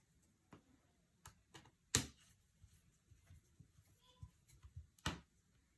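Faint scattered clicks and light taps of a Dell Latitude 7480's bottom cover panel being pressed back into place, with two sharper clicks about two seconds in and again about five seconds in.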